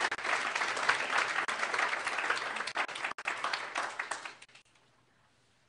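Audience applauding, thinning to a few scattered claps and dying away about four seconds in.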